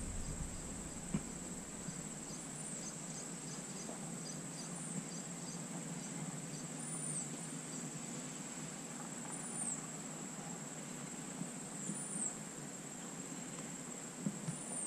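Insects trilling steadily at a high pitch, with a short chirp about every two and a half seconds.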